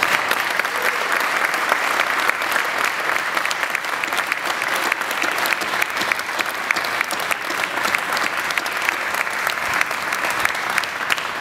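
Audience applause: a dense, steady patter of many people's hand claps.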